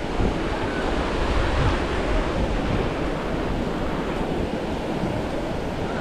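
Ocean surf washing on the beach, with wind buffeting the microphone and adding a low rumble; a steady rushing noise.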